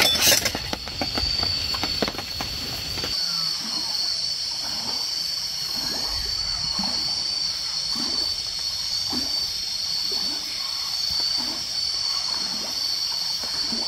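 River water flowing steadily at night, with an insect's high, pulsing trill running through it and faint, scattered falling calls. The first three seconds are louder, with low rumble and clicks.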